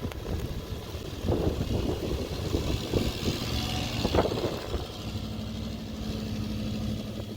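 A vehicle engine running low with a steady hum, while a rushing hiss of tyres or wind swells in the middle and fades.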